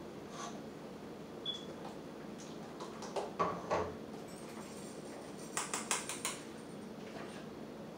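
Light clinks and taps of kitchen utensils against a metal saucepan and strainer while milk is strained and stirred in. A few taps come about three to four seconds in, then a quick run of five taps just before six seconds, over a steady low hum.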